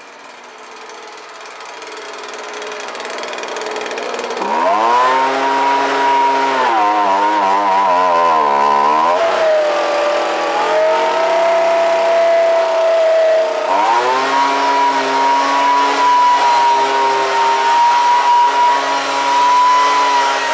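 McCulloch BVM 240 blower-vac running hard. Its whine climbs in pitch about four seconds in, wavers and drops to a lower note midway, then rises again and holds steady.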